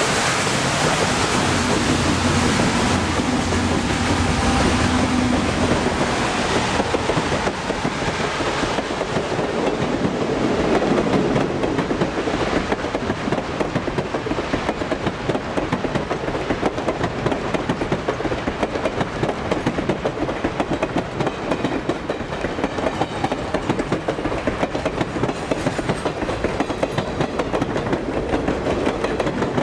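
Reading & Northern excursion train passing close by. A diesel locomotive's engine drones steadily for the first six seconds or so. Then a long string of passenger coaches rolls past with a dense, steady clatter of wheels on the rails.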